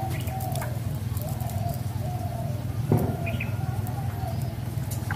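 Dove cooing in a series of short repeated notes over a steady low hum, with a single thump about three seconds in.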